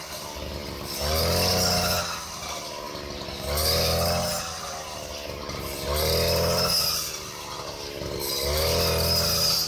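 Petrol brush cutter engine revving up for about a second roughly every two and a half seconds, four times, and dropping back toward idle in between, as its blade cuts through standing wheat stalks on each swing.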